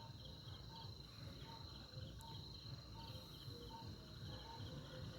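Faint chorus of night insects: a steady high trill and rapid pulsed chirps, with short lower calls repeating evenly about once every three quarters of a second.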